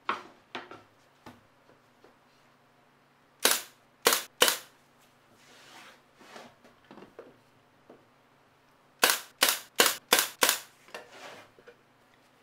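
Sharp clacks or snaps in clusters: one at the start, three loud ones about half a second apart a few seconds in, then five or six in quick succession near the end.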